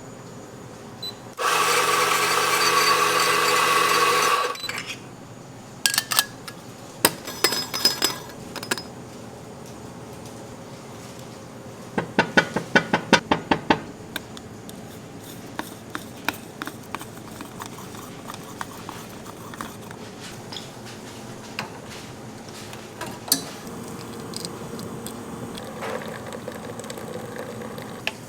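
A small electric motor whirs steadily for about three seconds, followed by scattered clicks and knocks, including a quick run of rapid clicks about halfway through.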